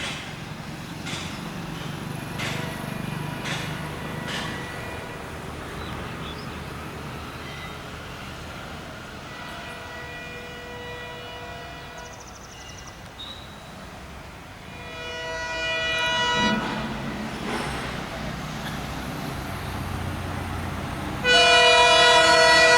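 EMD WDP-4-series diesel locomotive sounding its horn over the low rumble of its engine: a faint blast about 10 s in, a longer one about 15 s in, then a much louder, sustained blast near the end.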